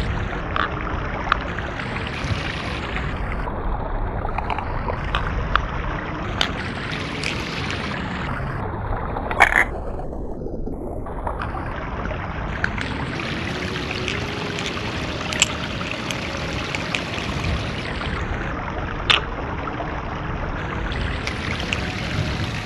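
Creek water running steadily, with scattered sharp clicks and clacks from a metal-handled balisong being flipped.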